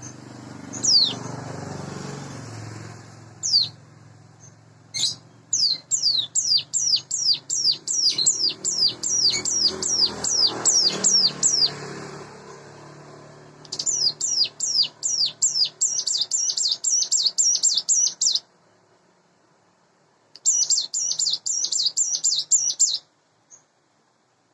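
Ciblek gunung (hill prinia) calling: a few single sharp, high down-slurred notes, then fast runs of the same repeated note lasting several seconds each, three runs in all with short pauses between them.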